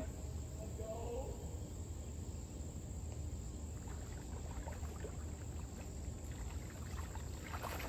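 Steady high, thin chirring of insects over a low rumble, with a faint voice briefly about a second in and a few light clicks near the end.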